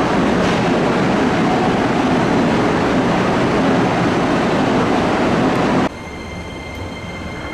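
Loud, steady rumble of a train running through an underground station, echoing off the walls. About six seconds in it cuts off abruptly to the quieter hum of a train car's interior, with faint high steady tones.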